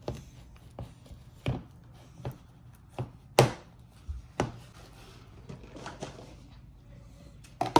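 Homemade slime being squeezed and stretched by hand, making irregular sticky pops and clicks.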